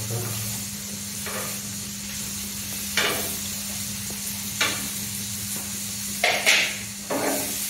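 Chicken pieces sizzling in a frying pan on a gas stove, with a metal utensil scraping and clinking against the pan several times, loudest in a quick cluster near the end.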